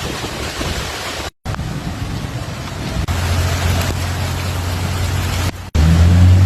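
Heavy rain and wind noise, cut off abruptly twice for a split second. A steady low engine hum joins the noise about halfway through and grows louder after the second break.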